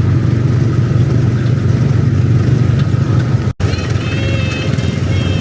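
Small petrol engine of a Tomorrowland Speedway ride car running steadily under way. About three and a half seconds in the sound cuts out for an instant, and afterwards higher wavering tones sound over the engine.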